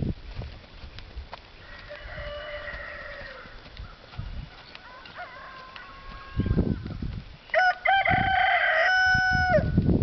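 Rooster crowing three times: two fainter crows in the first half, then a louder crow near the end, each held level for a second or two before dropping off.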